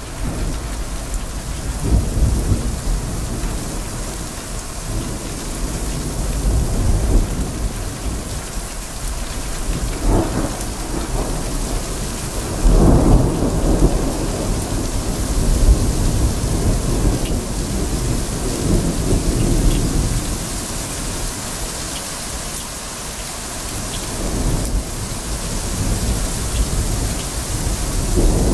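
Steady rain falling with rolling thunder; low rumbles swell several times, the strongest about halfway through.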